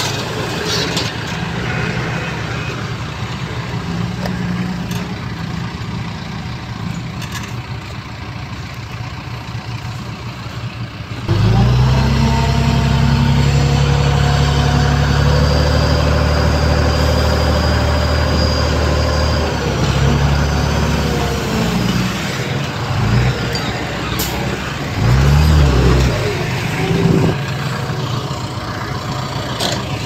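Diesel engines of heavy earthmoving machinery running. A steady engine note jumps suddenly louder about eleven seconds in and holds, then eases off. Near the end an engine revs up and drops back.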